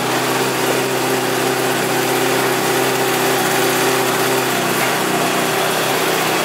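Honda CBR600RR's inline four-cylinder engine idling steadily, with no revving.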